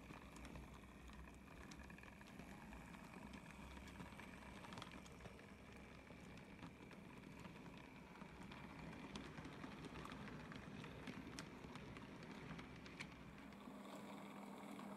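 Faint rumble and scattered clicks of model railway wagons rolling along the track and over rail joints. Near the end the rumble fades and a steady hum starts, the electric motor of an approaching model tank locomotive.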